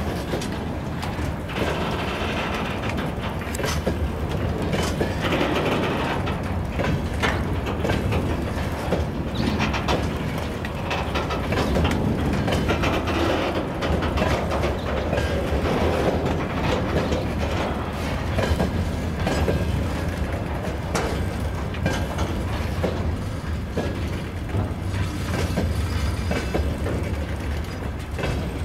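Freight train of open gondola wagons rolling past, the steel wheels knocking over rail joints in a steady stream of irregular clacks over a low rumble. The clatter carries on as the rear of the train moves away down the track.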